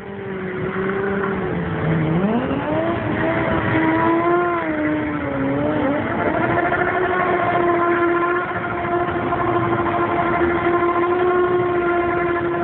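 Motorcycle engine held at high revs during a burnout. The pitch rises about two seconds in, wavers, climbs again around six seconds in, then holds steady.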